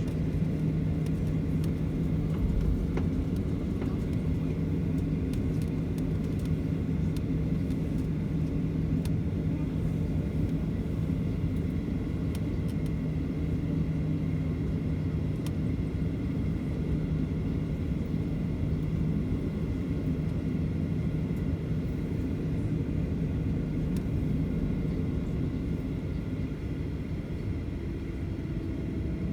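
Steady engine rumble and hum inside the cabin of a Boeing 737 on the ground after landing, easing slightly near the end.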